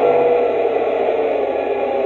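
Lionel RailSounds diesel engine sound playing through the model locomotive's small replacement speaker: a steady, even rumble that sounds clean now that the crackly old speaker has been replaced.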